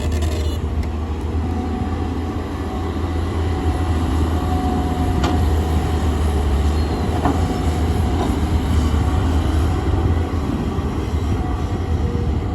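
Heavy excavator's diesel engine running steadily under load with a deep rumble, with a couple of sharp knocks about five and seven seconds in.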